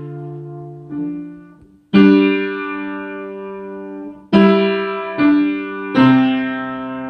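Upright acoustic piano played slowly by a young child: about five notes or chords struck one after another, each ringing on and fading, the last one held and left to die away.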